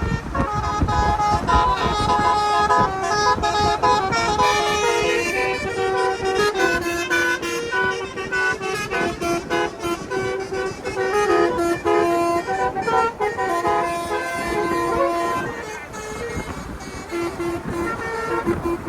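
Basuri telolet horn, a multi-trumpet car air horn, playing a tune of held notes that step up and down in pitch, over vehicle rumble.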